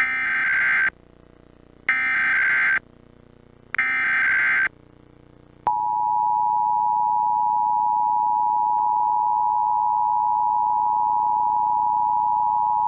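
Emergency Alert System monthly test tones: three one-second bursts of screechy SAME header data, then the steady two-tone EAS attention signal from about six seconds in.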